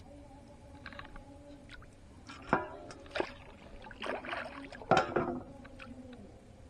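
Water splashing and dripping as a monofilament gill net is hauled hand over hand out of the water over the side of a wooden boat, with a few sharper splashes in the second half, two of them loud. A faint steady hum runs underneath.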